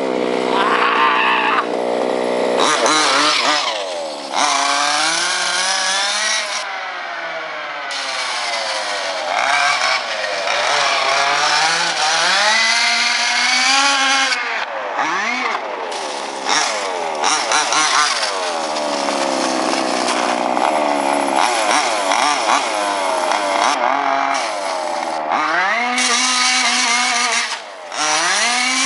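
MCD Evo3 Ultimate RC buggy's 30.5cc reed-case two-stroke engine, loud and revving up and down over and over as the buggy accelerates and backs off. It is running far too rich, as its owner says, but still pulls hard.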